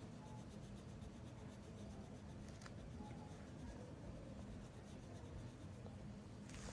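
Coloured pencil shading on paper: faint, steady scratching of back-and-forth strokes, with a couple of slightly sharper scratches, over a low steady hum.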